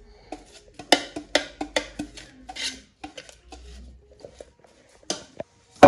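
Pastry brush dabbing and scraping butter inside a metal cake pan, with a run of light knocks and clinks as the brush and pan handle against the metal, and a sharper knock at the very end.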